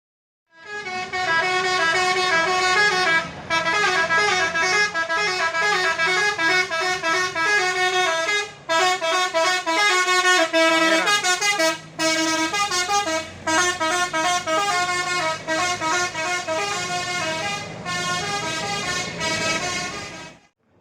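Tour bus's basuri horn, a multi-trumpet musical horn, playing a tune of stepped notes almost without pause, with brief breaks about three, eight and a half and twelve seconds in. It cuts off shortly before the end.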